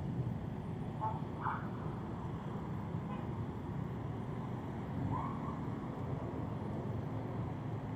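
Steady road traffic noise from a busy multi-lane city avenue, with cars, buses and motorbikes passing. A few short higher-pitched sounds stand out, about a second in and again around five seconds in.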